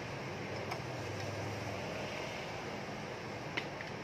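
Steady low hum with two faint clicks of a hand tool against metal, one shortly after the start and one near the end.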